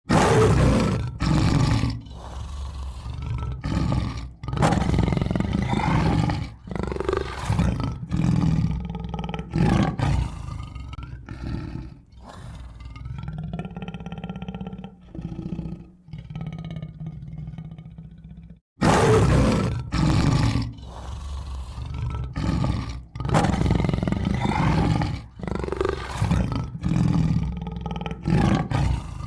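Tiger roaring and growling, a run of loud roars one after another. It cuts out abruptly about two-thirds of the way through and starts again with a similar run of roars.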